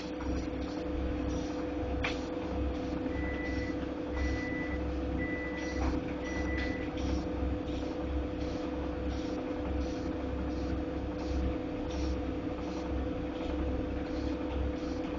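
Godrej fully automatic washing machine running with a steady hum and an uneven low throbbing, plus faint ticks about once a second: the noise the owner is complaining about. Four short high beeps sound a few seconds in.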